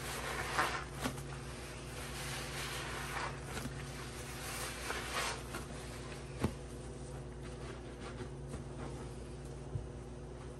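Wet sponges squelching as a rubber-gloved hand squeezes and presses them in thick, foamy cleanser paste in a plastic tub. The squishing is busiest in the first half, with one sharp tap about six and a half seconds in, and grows fainter after that.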